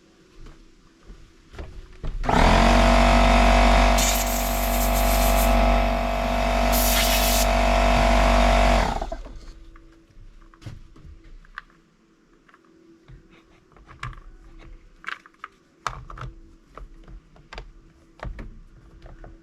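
Air compressor motor running for about six seconds, starting and stopping abruptly, with two short hissing blasts of compressed air partway through. Light clicks and knocks follow.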